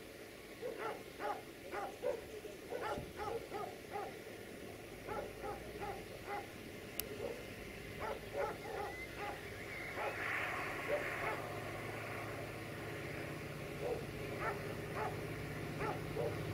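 A dog barking over and over, short repeated barks. From about ten seconds in, the low drone of an approaching diesel locomotive's engine grows beneath the barking.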